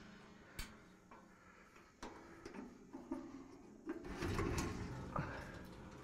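Metal clicks and clanks from a tractor-mounted wood chipper's discharge chute being handled and swung around by hand, with a louder rattling scrape about four seconds in and a short rising squeak just after.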